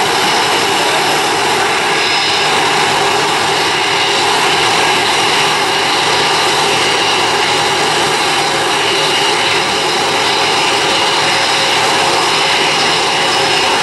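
Boeing 777's jet engines at climb power as the airliner departs: a steady, loud roar with faint steady whining tones in it.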